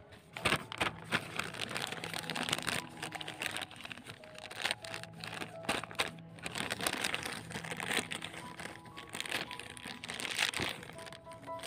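Thin black plastic polybag planting pots crinkling and crackling as hands pull their rims open and handle them, in irregular crackles beginning about half a second in.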